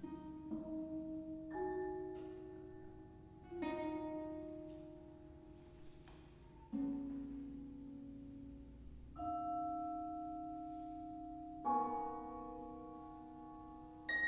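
Quiet contemporary chamber music for flute, clarinet, harp, piano and vibraphone: sparse notes and chords struck or plucked and left to ring, a new one every two to three seconds, each dying away slowly.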